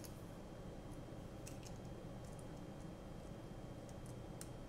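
A few faint, scattered small clicks of a precision screwdriver tip and the Caddx Tarsier camera's small housing being handled as a tiny screw is set in.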